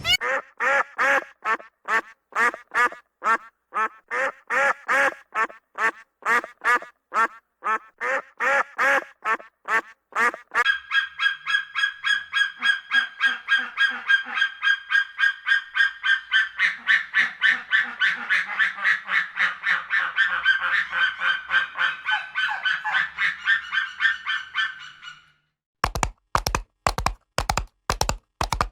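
Farm waterfowl calling: single repeated calls about three a second, then from about ten seconds in a faster, dense chatter of many birds calling together. This stops shortly before the end, where a run of sharp, evenly spaced taps takes over.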